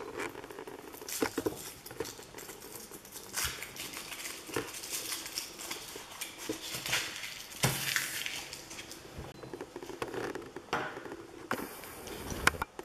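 Foil wrapper of a chocolate Kinder Surprise egg crinkling as it is peeled off by hand, with small irregular cracks and clicks as the chocolate shell is broken open and the plastic toy capsule is handled.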